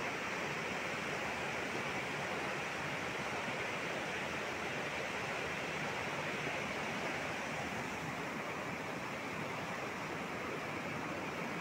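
Muddy floodwater of a wadi in spate after heavy rain, rushing by in a steady, even roar of water.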